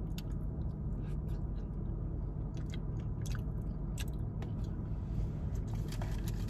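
Close-up chewing and lip smacking while eating fried vegan food dipped in ranch, with many short wet clicks, over a steady low hum.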